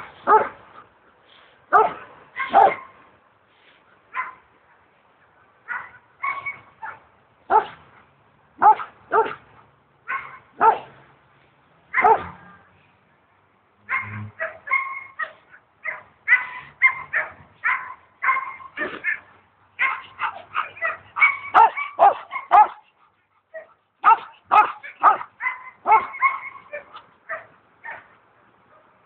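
A dog barking and yipping in short, sharp calls, spaced out at first, then coming in quick runs through the second half.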